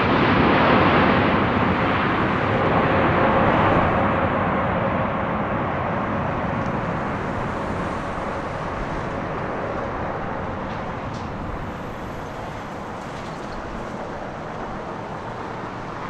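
Jet noise from a Boeing 777-200ER's twin GE90 engines on landing rollout: a loud rushing sound with a faint steady hum under it at first, loudest at the start and fading steadily as the jet slows and moves away down the runway.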